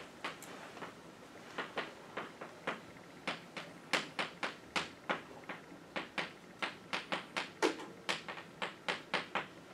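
Chalk tapping and scratching on a blackboard as words are written: a quick, irregular series of sharp taps, a few each second.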